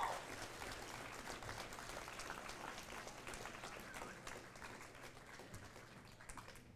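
Audience applauding, the clapping gradually dying away.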